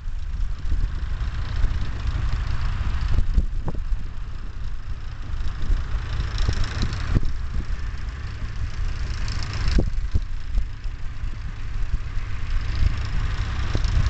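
Wind buffeting the camera microphone in a low, fluttering rumble, over the running of vintage farm tractors pulling ploughs through the field.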